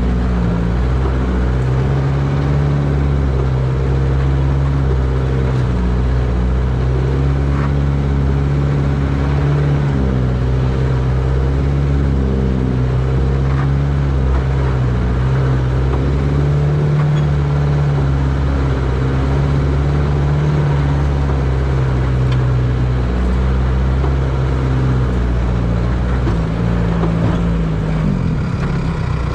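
1949 Willys CJ3A Jeep's four-cylinder flathead engine running as the Jeep crawls along a woods trail, its pitch rising and falling with the throttle and easing off near the end.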